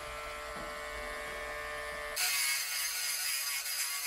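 Dremel rotary tool with a sanding disc spinning with a steady whine. About two seconds in, a sudden, louder grinding hiss begins as the disc bites into a metal battery contact, taking metal off to clean up a poor connection.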